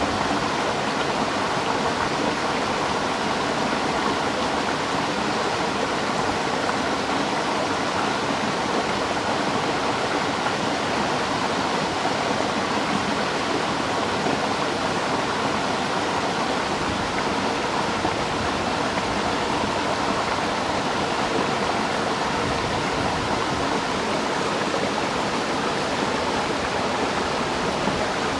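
Water running in a steady, even rush, the sound of a thin stream of liquid pouring and splashing.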